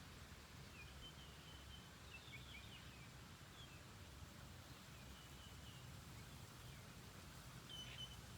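Faint bird chirps in short runs, over a low steady hum and soft background hiss.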